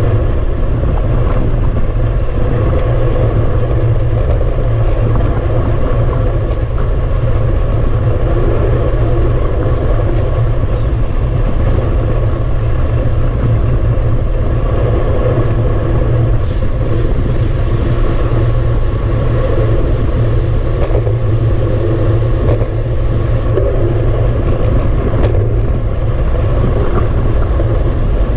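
Steady wind rush buffeting the microphone of a handlebar-mounted camera on a moving road bike, with tyre noise from the asphalt beneath. A brighter hiss comes in for several seconds past the middle.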